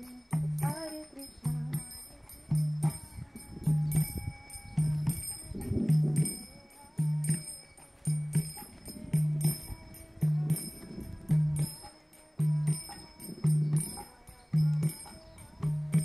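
Kirtan music: a mridanga drum beats a steady low stroke about once a second, while karatala hand cymbals keep up a constant bright jingling.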